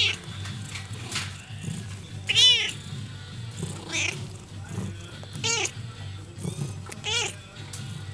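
Siberian kittens mewing: five short, high-pitched mews about one and a half seconds apart, the loudest about two and a half seconds in.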